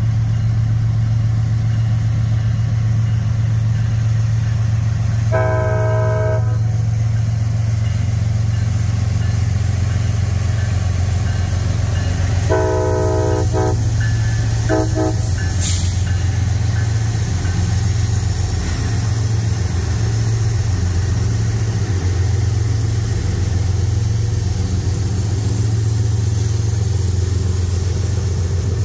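CSX diesel locomotives passing close by, their engines running with a steady deep drone. The multi-chime air horn blows a long blast about five seconds in, then another long blast and a short one between about 12 and 15 seconds in. This is the long-long-short pattern of a grade-crossing warning.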